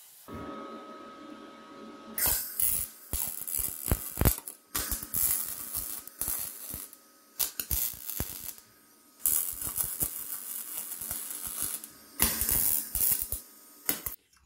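Arc welding on steel plate: the arc crackles and spits in several runs of a few seconds each, stopping and restarting. A faint steady hiss comes first, as water is poured over the metal.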